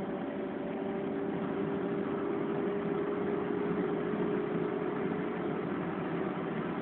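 Nissan 1.4-litre car's engine running under load at speed, heard from inside the cabin over road and wind noise. A steady engine note holds nearly level, then fades out near the end.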